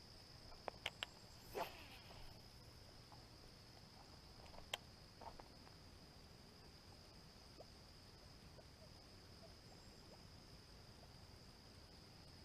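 Faint steady high trill of crickets or similar insects, with a few light clicks in the first two seconds and one more about five seconds in.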